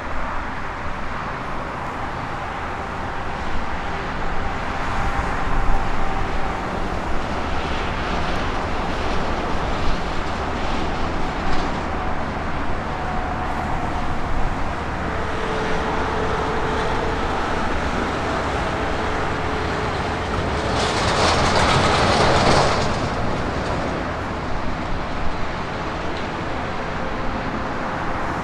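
Boeing 777 jet engines giving a steady, loud rumble, with a louder rush of noise about three-quarters of the way through.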